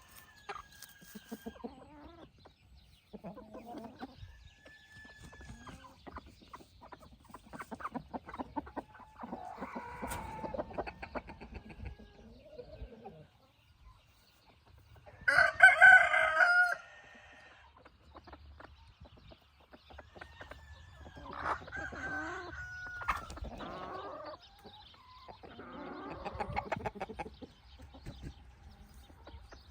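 Hens and roosters clucking with scattered short calls, and a rooster crowing loudly once a little past halfway through.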